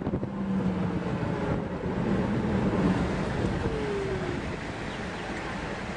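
Vehicle engine running with road noise during a drive, as a steady hum under a wide hiss, with wind rushing across the microphone.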